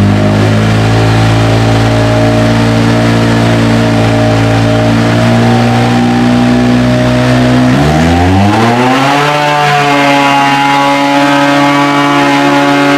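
Speed UTV Baja Bandit's turbocharged engine running on a chassis dyno, steady for several seconds. About eight seconds in it revs up quickly for a full-throttle pull, then holds a steady higher pitch as the CVT keeps the revs level.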